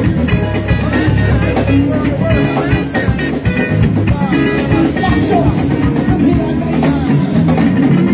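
Live rock band playing: electric guitar over bass and drums, loud and steady.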